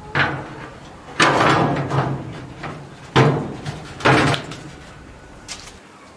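Enamelled sheet-steel cooktop of an old gas stove being set down on the stove body and shifted into place: four metallic clanks, the second drawn out into a scrape lasting about a second.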